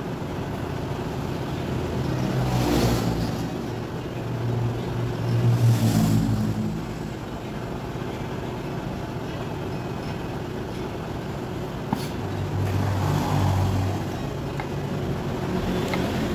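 Engines of passing road vehicles swelling and fading three times over a steady background hum, with a single sharp click about twelve seconds in.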